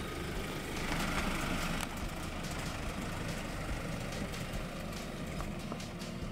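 Jeep Wrangler Rubicon's engine running at low speed as it drives slowly over a rocky dirt trail, a steady low rumble with a louder hiss about a second in.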